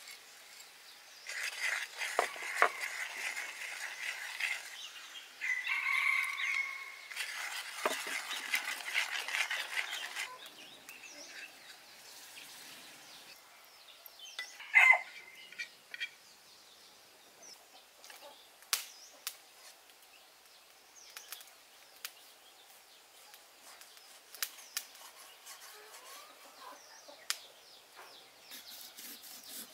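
Short bird calls over outdoor background: one call about six seconds in and a louder, falling squawk about fifteen seconds in. A hissing haze with pauses fills the first ten seconds, then scattered light clicks.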